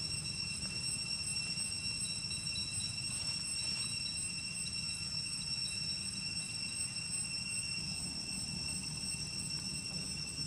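Insects, likely cicadas, droning steadily in several held high-pitched tones, one of them pulsing rapidly, over a low steady rumble.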